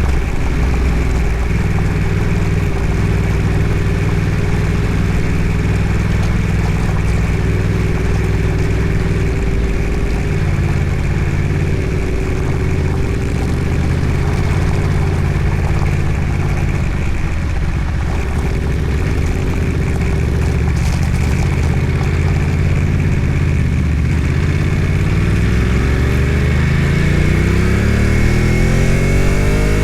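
Vehicle engine running steadily under load while driving off-road, with the revs climbing over the last few seconds.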